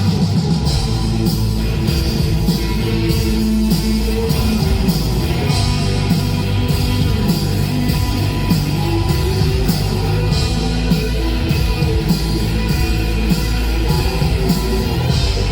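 Live rock band music at full volume: electric guitars and bass over a steady drum beat with cymbals.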